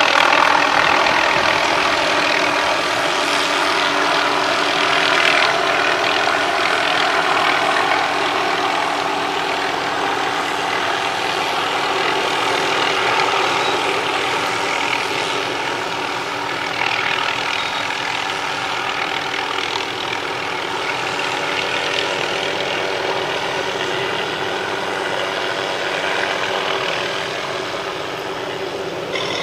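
An engine running steadily: a constant hum of several even tones under broad mechanical noise, unchanging throughout.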